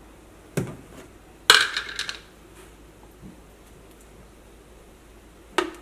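Kitchenware handled at a stove: a light knock, then a louder metallic clink with a short ring, and a sharp click near the end.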